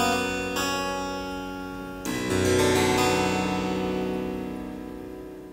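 Harpsichord playing the closing cadence: two chords, then about two seconds in a final spread chord whose notes sound one after another, ringing and slowly fading away.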